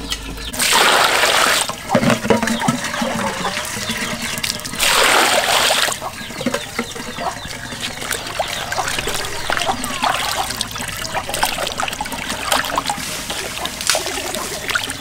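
Water splashing and sloshing in an aluminium basin as large fish are washed and rubbed by hand, with two louder splashes of water, about a second in and around five seconds.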